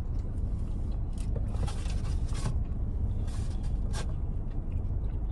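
A person biting and chewing a sauced chicken wing: several short mouth and chewing sounds. Under them runs a steady low rumble from the car.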